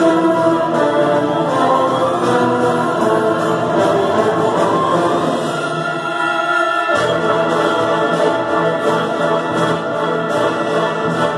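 Symphony orchestra playing a film score live, sustained strings to the fore; the low instruments fall away briefly and come back in sharply about seven seconds in.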